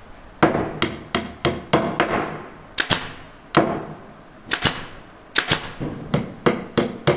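Hand hammer striking nails into a thick wooden beam: about fifteen sharp blows at an uneven pace, each with a short ring. Driving one nail by hand takes five or six blows.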